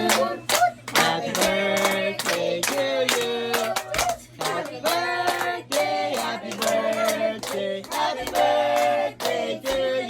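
People singing a song together, with hands clapping along to the beat.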